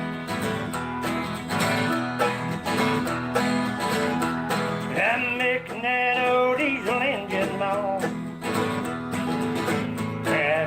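Country song with guitar and a steady beat, a voice singing a melody from about halfway in.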